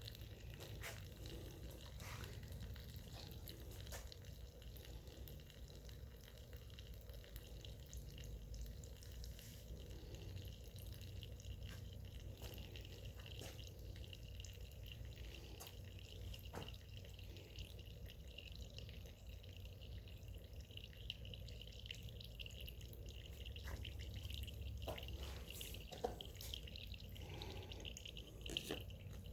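Old gasoline trickling and dripping from a disconnected fuel line into a cup as the fuel tank of a Honda trash pump drains, faint and steady with small drips throughout.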